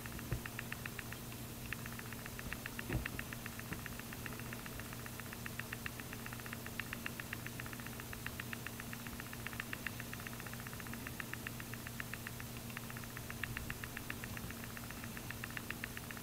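Steady low electrical hum with a fast, regular ticking that comes and goes in runs.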